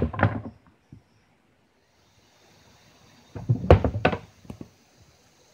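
Homemade wooden box trap being sprung: a quick cluster of hollow wooden knocks and thuds as the drop door slams shut. A second, louder cluster about three and a half seconds in, as the wooden trigger sticks fall onto the box and clatter. Insects buzz steadily from about two seconds in.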